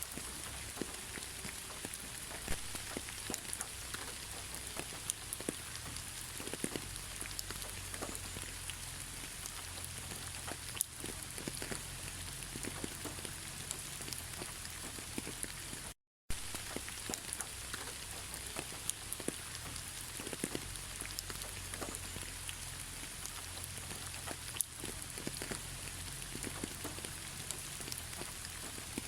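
Steady rain falling on a surface, with many individual drops ticking through the even hiss. The sound cuts out completely for a split second about halfway, then resumes.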